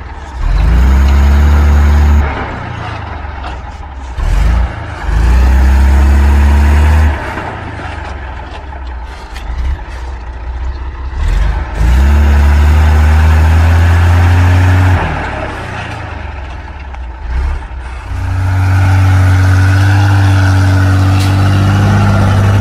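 Heavy six-wheel-drive log truck's engine revving hard in about four long bursts, the pitch rising at the start of each, then falling back to a lower, quieter rumble between them as the loaded truck crawls over rough ground.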